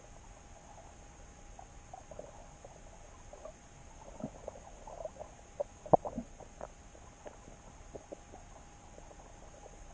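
Underwater sound picked up by a camera in a waterproof housing: scattered faint clicks and pops over a steady hum. The sharpest click comes about six seconds in, amid a short cluster of pops.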